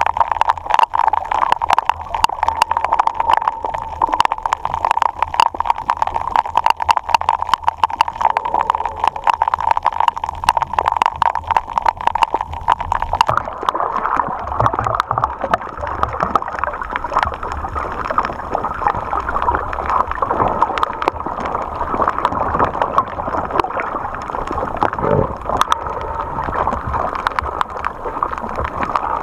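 Underwater ambience over a coral reef, heard through the camera underwater: dense crackling clicks over a steady hum, which shifts slightly higher in pitch about halfway through.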